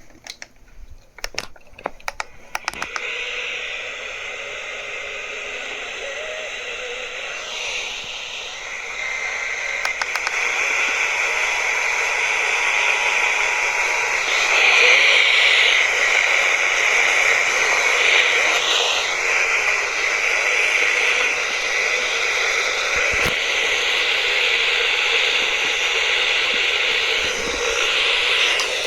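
Radio static from a receiver sitting on a weak or empty signal: a steady hiss with crackling clicks in the first few seconds, growing louder about eight seconds in.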